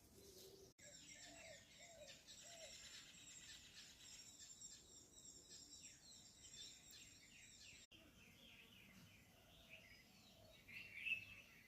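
Faint chorus of several small birds chirping and singing together, with a louder single chirp near the end; the sound drops out briefly twice.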